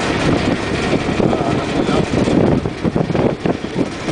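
A river ferry's engine running steadily, with wind gusting over the microphone.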